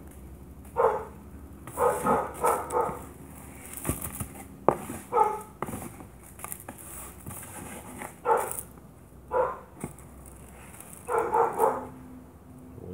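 A dog barking repeatedly in short barks, some coming in quick runs of three or four.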